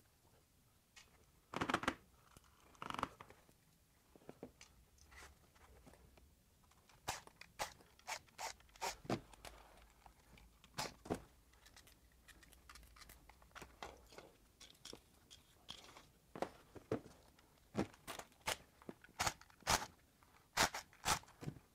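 Plastic tool-battery housings being handled and taken apart on a metal workbench: irregular sharp clicks and knocks as top caps are pried loose and battery packs are picked up and set down.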